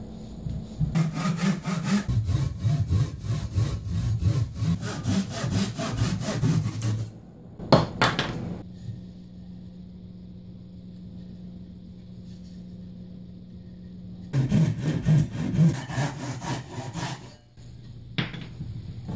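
Japanese-style pull saw cutting notches in softwood boards in quick, rasping strokes, in two spells: a long one starting about a second in and a shorter one a little past the middle. A couple of sharp wooden knocks fall in the pause between them and near the end.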